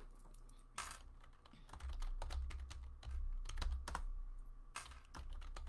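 Typing on a computer keyboard: an irregular run of quick key clicks.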